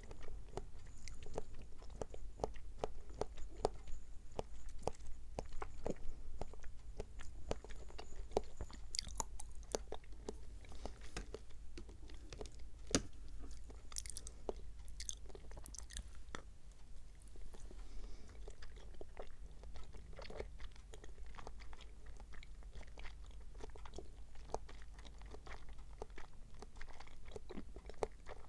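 Close-up chewing of springy pineapple-flavoured konjac jelly cubes: wet squishing with many small, irregular sharp clicks from the mouth.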